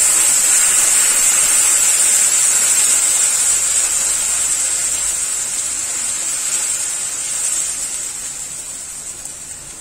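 Ground onion paste sizzling in hot mustard oil in a kadai, just added to the pan. The loud hiss slowly dies down.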